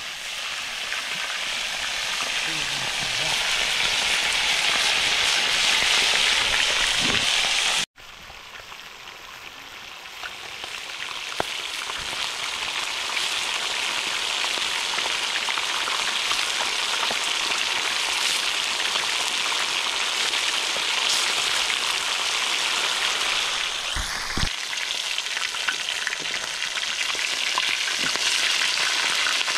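Fish frying in hot oil in a plough-disc pan over a wood fire: a steady, dense sizzle. About 8 s in it cuts off for an instant and returns quieter, then builds back up.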